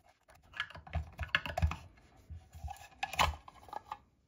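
Light plastic clicks and knocks as a DeWalt 20V lithium-ion battery's cell pack, press-fit in its holder, is worked loose and pulled out of the plastic case bottom. An irregular string of small clicks, the loudest about three seconds in.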